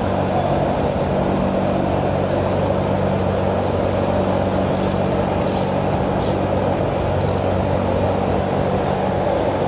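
Steady workshop background noise with a low hum. Over it come about seven short, faint clicking bursts, spaced roughly a second apart: a hand ratchet with a 5/16 hex-key socket being swung back as it snugs the gear pump's bolts.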